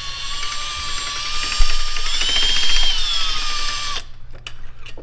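Cordless drill running a long left-hand (reverse-twist) drill bit into a broken steering-box mounting bolt to back it out. The motor whine gets louder about a second and a half in, rises briefly in pitch, then stops abruptly about four seconds in.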